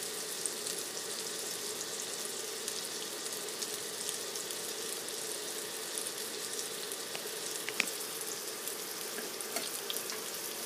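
Frozen hamburger patties sizzling steadily in an ungreased pan on an induction cooktop, with fine crackling and one sharper pop late on.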